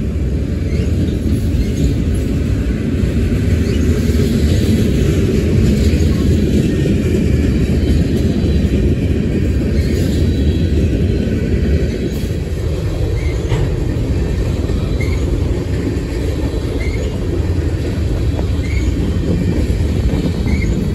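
Freight train cars rolling past: a steady, heavy rumble of steel wheels on rail, easing slightly about twelve seconds in, with faint scattered clicks.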